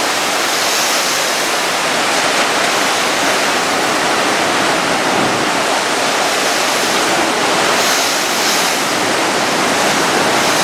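Category 4 hurricane eyewall wind and wind-driven rain: a loud, steady rushing noise that swells with gusts about a second in and again near the end.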